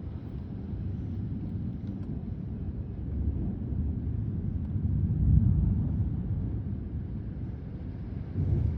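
Thunderstorm rumbling: a deep, rolling noise that swells to its loudest about five seconds in and eases off, then rises again near the end.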